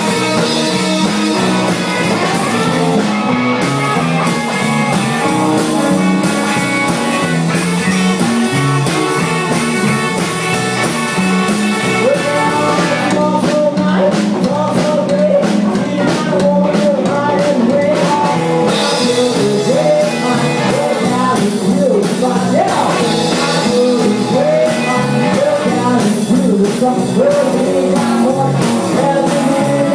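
Live rock and roll band playing: hollow-body electric guitar through a small amp and a stand-up drum kit with snare, toms and cymbal, with a voice singing over them.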